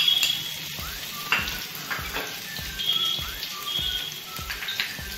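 Chopped green chillies sizzling and crackling in hot oil in a pan, over background music with a steady beat.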